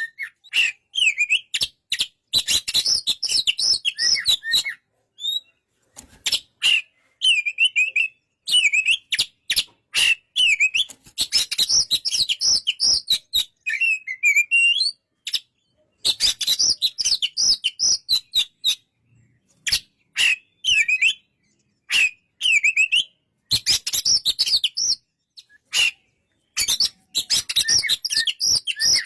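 Oriental magpie-robin singing: rapid, varied whistled and chattering phrases delivered in bouts of a few seconds, with short pauses between them.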